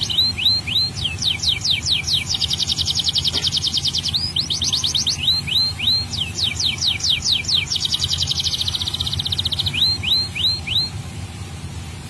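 Domestic canary singing in full song: rapid trills alternating with runs of three or four quick downward-sweeping notes, stopping near the end.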